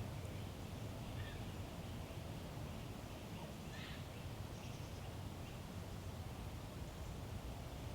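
Woodland ambience: a steady low rumble with a few faint, brief bird calls, the clearest about four seconds in.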